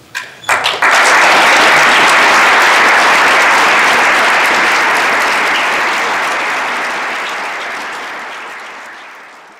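Audience applauding: a few scattered claps, then full, dense clapping within the first second that gradually fades away toward the end.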